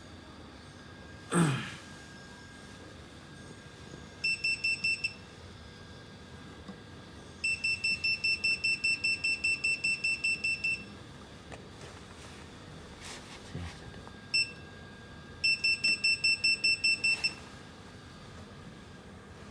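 Rapid electronic beeps from the crimp tester's panel, about five a second, in runs: a short run, a longer run of about three seconds, a single beep, then another run. A single knock about a second in.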